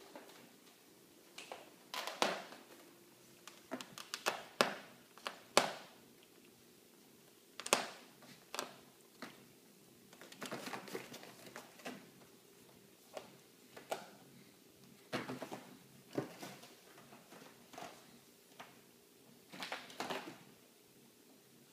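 A Sphynx cat chewing and clawing at the torn edge of an office chair's backrest: irregular crunching and scratching clicks, some single and some in quick clusters.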